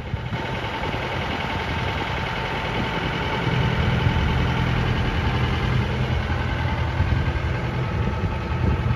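A sailboat's auxiliary engine running steadily while motoring, a continuous low hum; the low hum grows louder about three and a half seconds in.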